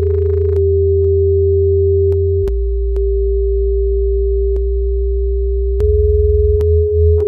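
Experimental electronic drone music: a steady pure sine tone held over deep low drones that shift pitch twice, dotted with sparse sharp clicks. Near the end a low throbbing pulse comes in, a few beats a second.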